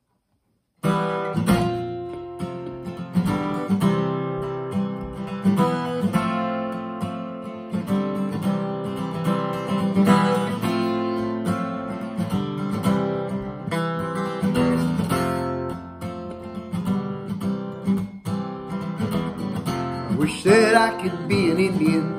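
Steel-string acoustic guitar strummed in a steady rhythm as the solo intro to a folk song. The strumming starts suddenly about a second in, after near silence.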